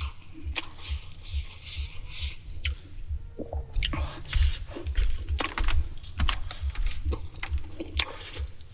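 Close-miked chewing with wet mouth smacks and clicks, at a steady pace of about three chews a second, as in a mukbang.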